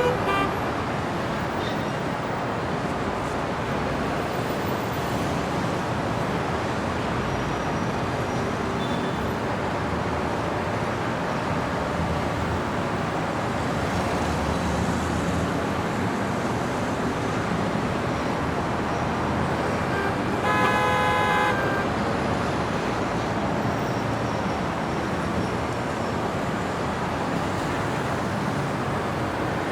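Steady city street traffic noise, a continuous rush of passing cars. A car horn sounds once, for just over a second, about two-thirds of the way through.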